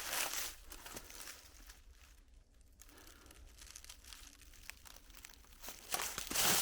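Footsteps of a hiker walking on a forest trail: a step or two at the start, a quieter pause, then steps again near the end.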